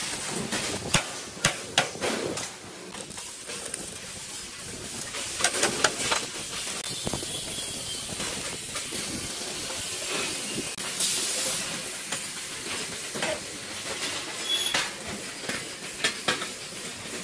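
MIG welding arc on steel tubing, a steady hissing crackle. A few sharp metal knocks, about 1, 2 and 6 seconds in, stand out as the loudest sounds.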